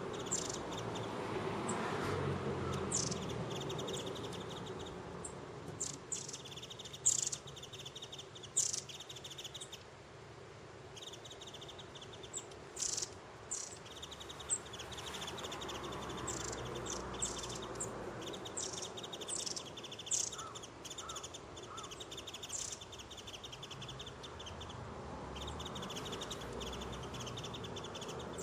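A flock of long-tailed tits calling: many short, thin, very high notes scattered throughout, mixed with stretches of rapid buzzing trills lasting a few seconds each, over a low background rumble.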